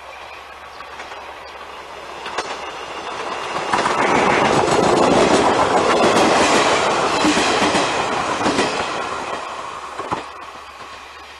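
JNR KiHa 35-series diesel railcar train passing close by. It grows louder and is loudest for about four seconds, with its wheels clacking over the rail joints, then fades away.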